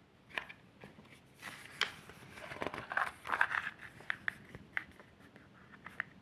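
Hands handling the packaging of a Blu-ray box set: a run of sharp clicks and taps with a stretch of crinkling and rustling in the middle.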